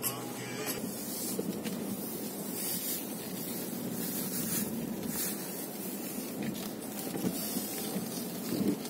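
Car driving slowly through deep snow, heard from inside: a steady rushing and hissing of the tyres pushing through the snow, with the engine running low beneath it.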